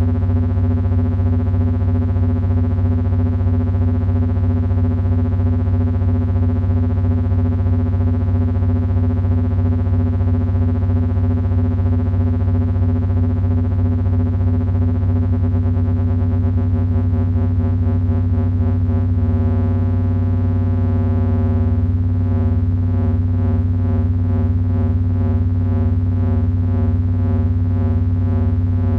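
Heavy electronic drone from three Frequency Analyzer v1 units driven by an HP 200C audio oscillator: a dense stack of steady tones with a strong low hum, the upper tones pulsing against one another. About two-thirds of the way in, the pulsing in the upper tones shifts to a faster, more even pattern.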